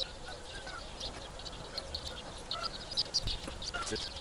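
Birds chirping and calling, with short light clicks of scissors trimming a dog's fur.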